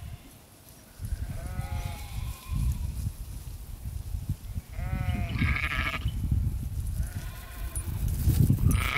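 Sheep bleating, several separate bleats with the loudest about five seconds in, over a low rumbling noise that starts about a second in.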